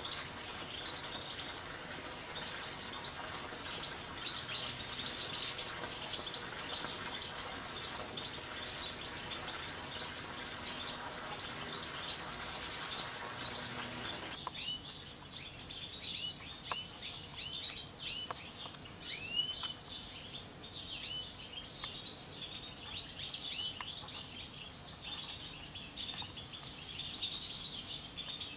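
A flock of European goldfinches twittering and chirping, many short calls overlapping. For the first half a steady hiss of water splashing into a pool runs under them; it stops abruptly about halfway through, leaving the chirps clearer.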